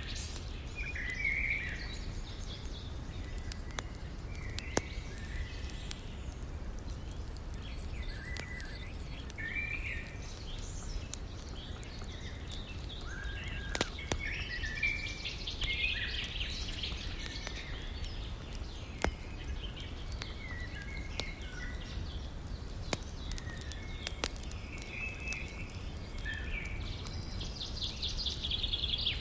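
Wood fire crackling with scattered sharp pops over a steady low rush of flowing river water, while birds chirp and sing throughout.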